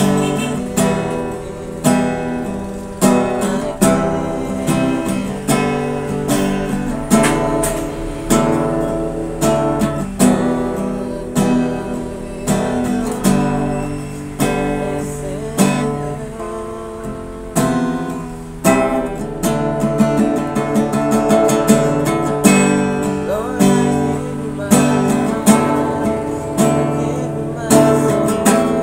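Acoustic guitar strummed in a steady rhythm, with a young man's voice singing a slow worship song along with it.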